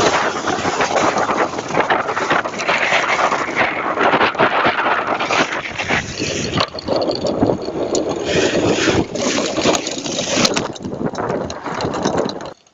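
Wind buffeting the microphone of a mountain bike riding fast down a dirt trail, with the tyres and frame rattling and knocking over rough ground. The noise eases off near the end.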